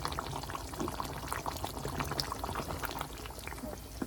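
Water pouring and splashing in a kitchen pot or sink, with many small scattered ticks over a low steady hum.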